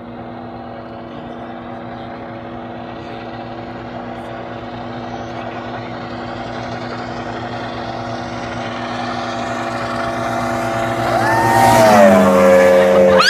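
Yamaha V-Max two-stroke outboard on a speedboat running flat out, approaching from a distance with its steady engine note growing louder, then dropping in pitch as the boat passes close by at high speed about eleven to twelve seconds in.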